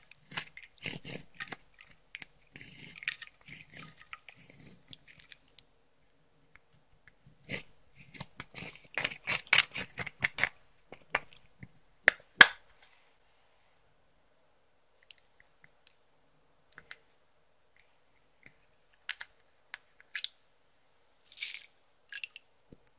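Sticky crackling and clicking from makeup and slime being handled and mixed by hand, in two busy stretches with a sharp snap near the middle, then only scattered ticks and one short crackle near the end.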